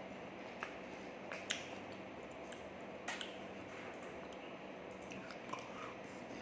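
Eating sounds: a man chewing with wet mouth smacks while a plastic spoon scoops rice from a styrofoam food box, giving a few scattered sharp clicks over a steady room hum.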